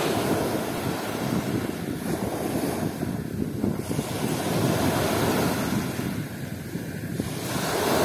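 Small surf waves of the Sea of Azov breaking and washing up a sandy shore, the rush of water swelling and fading with each wave.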